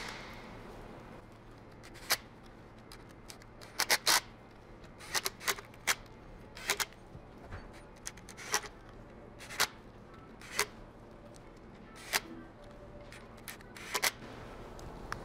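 Irregular sharp metallic clicks and taps, about one a second, as the remaining transmission oil pan bolts are picked up and started in their threads by hand.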